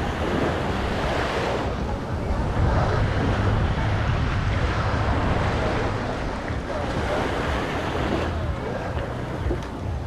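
Small waves washing up on a sandy beach in a steady wash of surf, with wind rumbling on the microphone.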